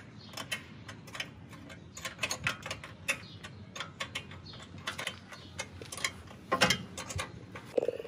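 Hand tools working on a small single-cylinder engine: irregular clicking of a ratchet wrench and taps of metal on metal, with a louder cluster of clicks about six and a half seconds in.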